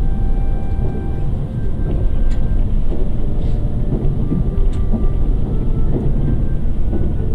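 Steady low rumble of a train running, heard from aboard the carriage, with a few faint clicks.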